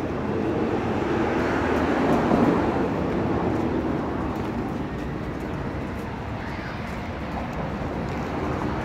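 Street traffic noise: a vehicle passing, swelling to its loudest about two seconds in, then settling into a steady rumble.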